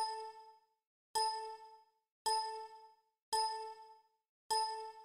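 A computer's alert chime: a bright, ringing ding sounding five times, about once a second, each one dying away before the next.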